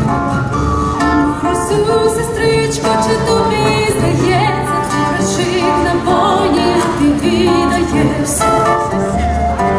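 A woman sings a Ukrainian folksong with vibrato, in a jazzy arrangement accompanied by nylon-string acoustic guitar and upright bass.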